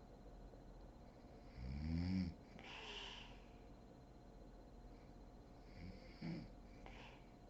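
A sleeping woman snoring. A loud snore comes about two seconds in, followed by a breathy exhale. A shorter, weaker snore comes around six seconds in, with another breath after it.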